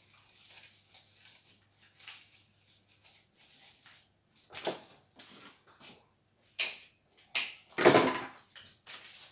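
Leaves and stems rustling as they are handled and set into a flower arrangement, with three louder sharp snaps near the end, the loudest about eight seconds in.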